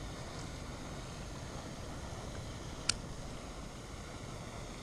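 Steady low outdoor rumble, with one sharp metallic click about three seconds in from fishing pliers working at a hook in a catfish's mouth.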